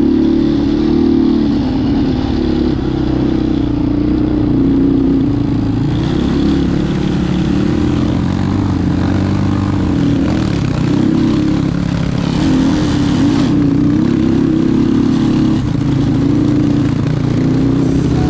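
A vehicle engine running steadily under way, its pitch rising and falling a little with speed.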